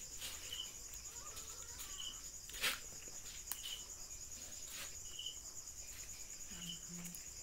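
Night insects chirring steadily in a high, finely pulsing trill, with a short chirp repeating about every second and a half. A single sharp click about two and a half seconds in.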